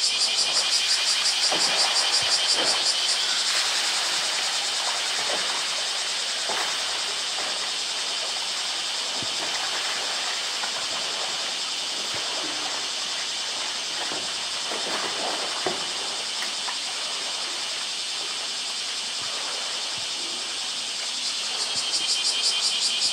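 A steady, high-pitched chorus of cicadas, rapidly pulsing and a little louder during the first few seconds and again near the end. Under it come faint splashes of water and soft knocks as a polar bear wrestles a blue plastic drum in its pool.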